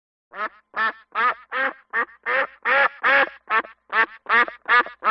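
Duck quacking in a steady run of about a dozen short quacks, two or three a second.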